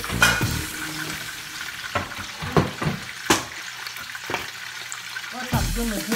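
Fish frying in hot oil in a skillet, sizzling steadily with a few sharp pops of spattering oil. Background music comes back in near the end.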